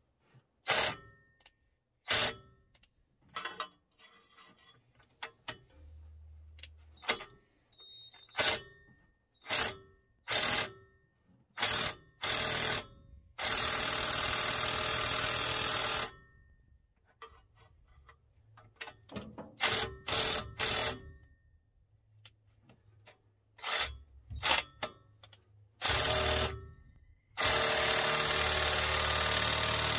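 Hand socket ratchet clicking on a rusty exhaust bolt of a 1948 Ford F5 as the stuck bolt is worked back and forth. Short strokes are heard throughout, with two longer runs of a couple of seconds each, one midway and one near the end.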